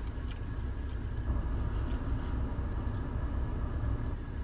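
A steady low rumble of a running vehicle, with a few faint, sharp clicks.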